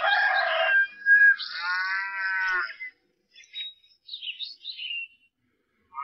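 Farmyard animal sound effects. A rooster's crow ends with a long held note, followed by a drawn-out farm-animal call that rises and falls in pitch. A few short, high bird chirps come after it.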